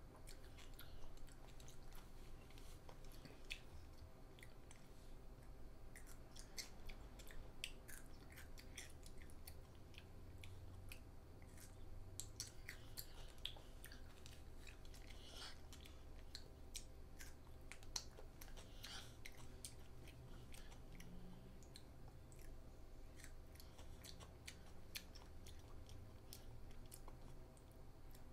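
A child chewing and crunching raw cucumber slices, with many small, irregular crunching clicks; faint.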